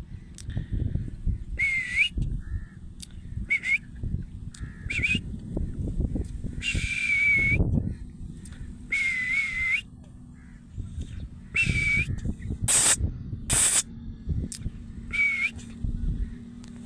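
Pet parrot squawking again and again, about nine short calls a second or two apart, with two harsher screeches a little past the middle, over low rumbling noise.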